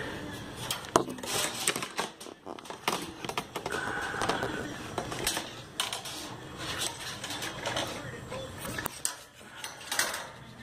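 Old spinning reel on a fishing rod being handled and cranked to test it, giving irregular metallic clicks and rattles.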